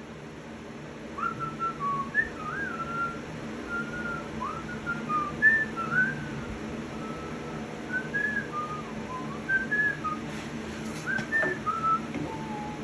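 A person whistling a wandering tune in short, sliding notes, over a steady low hum.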